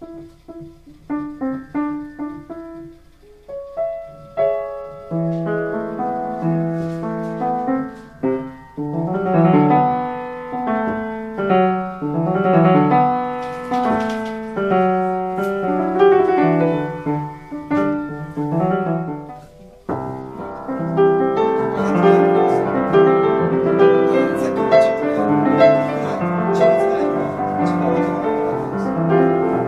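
An 1872 Rittmüller German upright piano being played: sparse single notes and chords at first, building into a fuller passage. After a brief break about twenty seconds in, dense sustained chords ring on.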